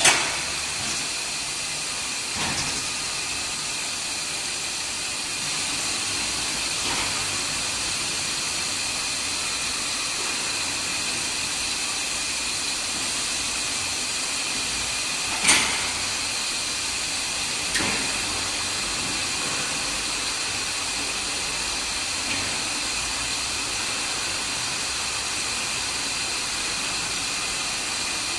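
Steady hiss with a faint high whine while a cable winch drags curing carts of aerated concrete blocks along rails out of an autoclave. Sharp metallic clanks come at the start and about halfway through, with a few smaller knocks between.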